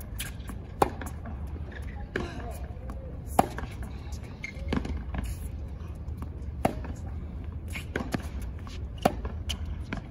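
Tennis rally on a hard court: sharp pops of the ball off racket strings and its bounces, the loudest hits coming about every two and a half to three seconds, with fainter hits from the far end of the court in between.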